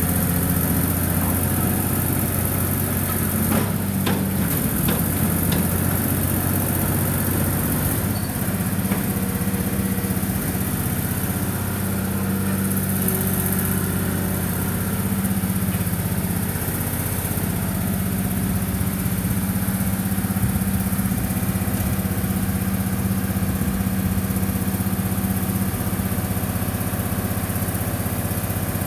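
Case Poclain 90 tracked excavator's diesel engine running steadily as the boom and arm are worked, its note shifting a few times. A few short clicks about four seconds in.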